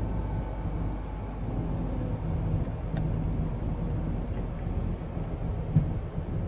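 MAN TGX truck's straight-six diesel engine running at low speed, heard from inside the cab as a steady low hum. A single short knock sounds near the end.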